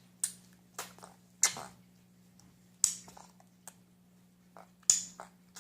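Baby making short, pig-like sounds, five sharp noisy bursts a second or so apart, the longest and loudest about a second and a half in. A steady low hum runs beneath.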